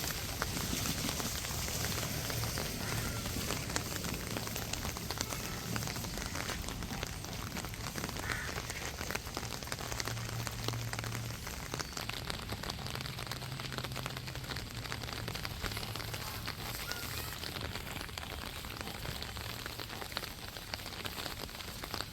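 Steady rain falling and pattering on the street and surfaces, with a dense patter of fine drop taps.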